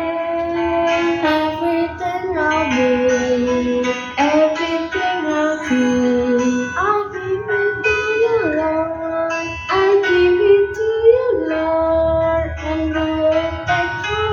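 A worship song performed live: a high voice sings a slow melody of held notes over guitar accompaniment.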